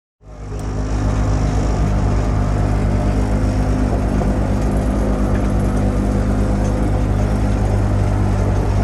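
A sailing yacht's engine running steadily under way, a low even throb that comes in abruptly at the very start.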